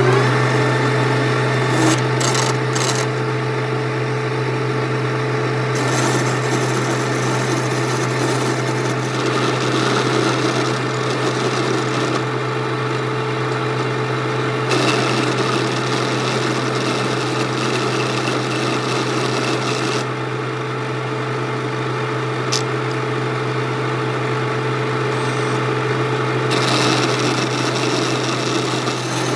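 Metal lathe running, its motor tone rising and settling at a steady speed at the start, with a continuous scraping, rasping noise of metal being worked over a steady hum.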